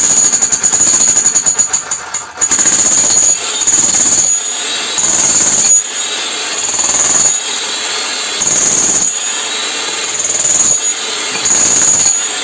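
Makita HM1801 electric demolition hammer striking with its point chisel against plywood. It hammers continuously for about two seconds, then in repeated loud bursts roughly every second and a half, running more quietly in between. The machine is freshly rebuilt with new parts and fresh grease, and is not yet at full striking power because the grease still has to spread.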